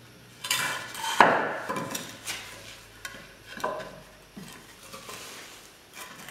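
Wooden log furniture pieces knocking and scraping together as a leg and cross rail are handled and their tenons are started into the mortises: several separate knocks, the loudest about a second in.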